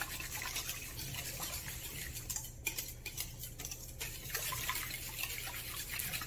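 Wire whisk beating a thin, wet batter in a stainless steel mixing bowl: quick sloshing, scraping strokes, pausing briefly twice.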